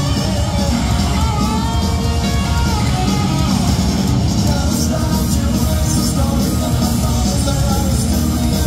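Live punk rock: a band playing loud distorted electric guitars, bass and drums, with a male lead singer, recorded from the audience in a large hall.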